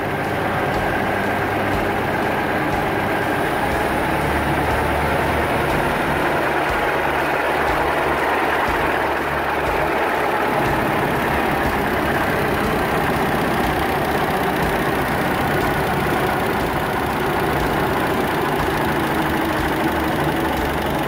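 Engine of a 1913 25 hp chain-driven Albion charabanc idling steadily, just after being started.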